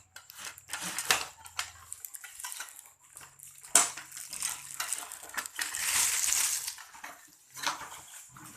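Unboxing handling of a tripod ring light: hard parts clack and knock several times, the sharpest about four seconds in, with a longer stretch of packaging rustling after it.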